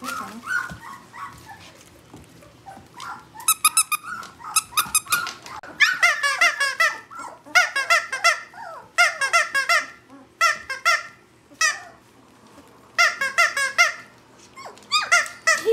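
Squeaky plush dog toy squeezed over and over, giving quick runs of high squeaks in bursts every second or two from a few seconds in.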